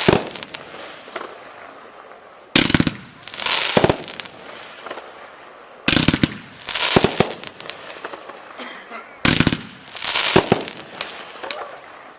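A Winda 'Game On' 40-shot consumer 1.4G firework cake firing in volleys about three seconds apart. Each volley is a quick series of sharp launch reports followed by crackling, hissing breaks overhead.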